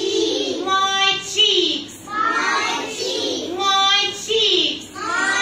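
Children's voices singing together in a classroom, with a held high note about a second in and again about four seconds in, and short hissing sounds between the phrases.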